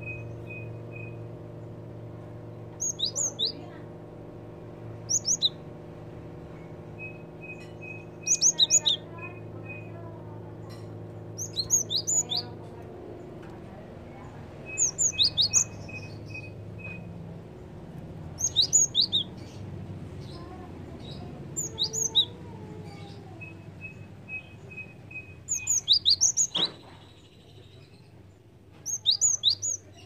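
Caged cinereous tit (gelatik batu) singing its sharp, high song phrases, each a quick set of two to four notes, repeated about every three seconds. Between some phrases are softer runs of short, thin ticking notes, and a steady low hum runs underneath.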